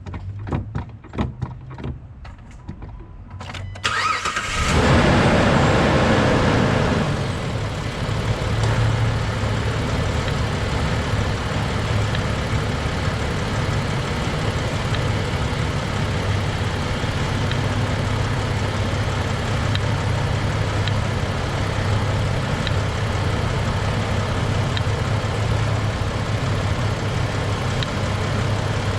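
A few light clicks, then the Jeep Liberty's engine is cranked and starts about four seconds in, flares up loudly for a few seconds and settles into a steady idle. It is being run to test a newly fitted power brake booster check valve, and no whistle stands out over the idle.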